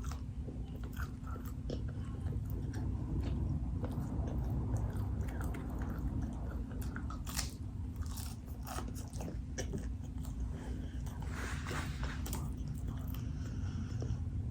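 Close-up mouth sounds of a person chewing and biting fast food, with scattered crisp crunches over a steady low hum.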